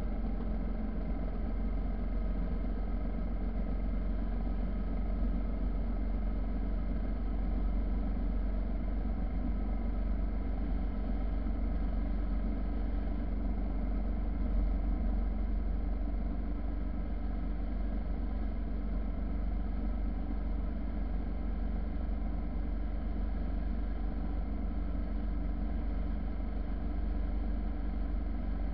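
Motorcycle riding at a steady cruising speed: its engine runs at an even, unchanging pitch under a heavy low rumble of wind on the bike-mounted microphone.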